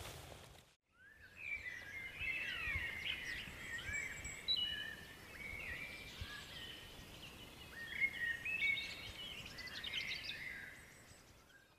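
Songbirds singing, starting about a second in after a brief gap: a dense run of quick chirps and whistled notes sliding up and down, fading near the end.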